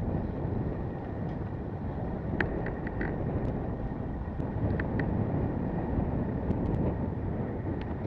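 Wind rushing over the microphone of a camera mounted on a moving bicycle, with road noise and a few light clicks a couple of seconds in.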